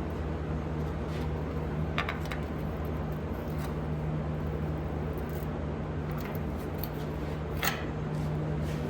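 Hand snips cutting sheet steel: a few short, sharp crunching snips, two close together about two seconds in and a louder one near the end, over a steady low hum.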